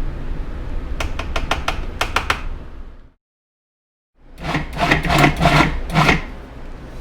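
Sharp knocks and clicks of kitchen utensils and containers against a food processor bowl as dry ingredients are added. There is a few quick clicks about a second in, a dead gap of about a second a little after the middle, then another cluster of knocks.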